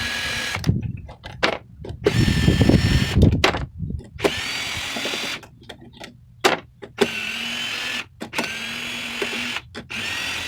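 Cordless power drill/driver run in short bursts of about a second each, several times over, to back out the screws holding copper and brass terminal pieces. The burst about two seconds in is louder and rougher than the rest.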